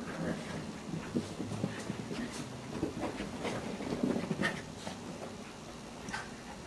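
Small puppies yapping, short high barks scattered at irregular intervals, over a low scuffling background.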